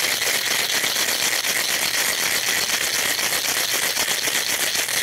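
Ice cubes rattling inside a cocktail shaker shaken vigorously: a fast, continuous rattle. This is the wet shake with ice that follows a dry shake of an egg-white whiskey sour.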